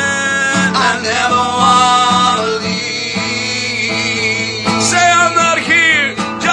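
A man singing a slow worship song, holding long wavering notes, over instrumental backing.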